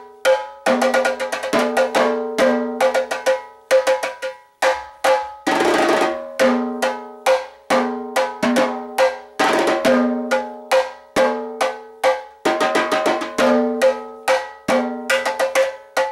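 A set of three tuned tenor drums played with wooden sticks. The playing is a fast improvised pattern that moves between the drums' different pitches, with quick rolls and bursts of rapid single strokes.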